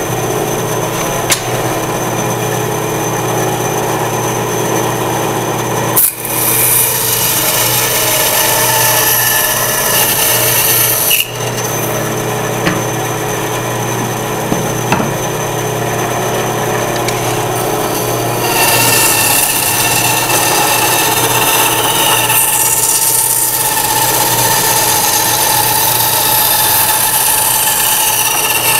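Ryobi benchtop band saw running with a steady motor hum. Partway through, the blade starts cutting into a thick block of softwood, adding a rasping sawing noise over the motor.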